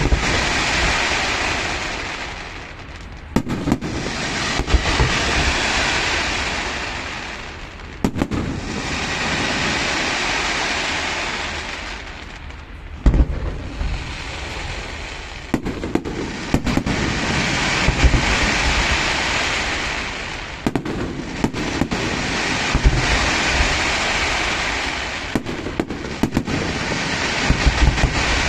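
Fireworks display: sharp bangs and deep booms of bursting shells, each followed by a hiss that swells and fades over several seconds, in four rounds.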